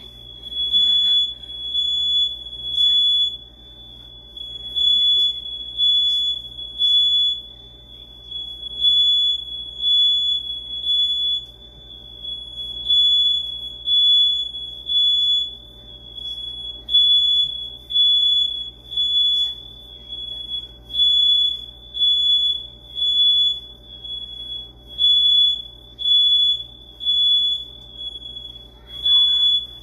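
House alarm sounding a loud, high-pitched beep in repeated groups of three with a short pause between groups, about a beep a second.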